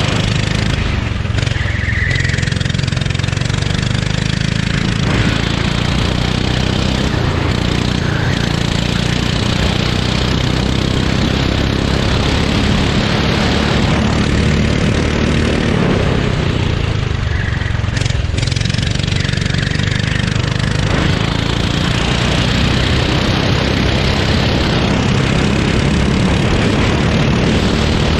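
Kart engine running hard throughout, heard up close from the driver's seat; its sound drops back twice, about a second in and again past the middle, then builds again.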